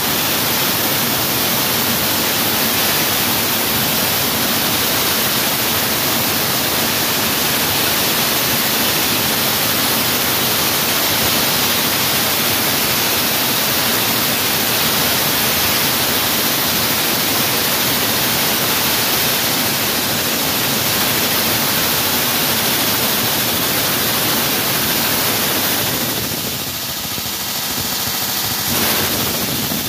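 Wall saw cutting into a concrete wall: a loud, steady, even noise. Near the end the noise drops and a steady hum from the machine's motor comes through.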